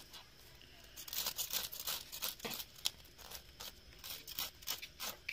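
A serrated fish scaler scraping scales off a whole fish on a wooden board: a quick run of short, sharp rasping strokes, several a second, starting about a second in.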